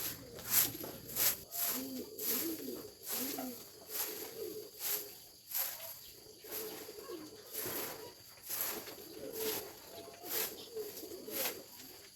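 Birds giving soft, low calls over and over, with a run of sharp clicks or taps about once or twice a second.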